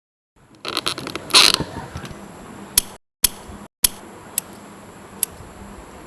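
A short rattling clatter about a second in, then a few sharp, separate clicks or taps spaced out over steady room hiss.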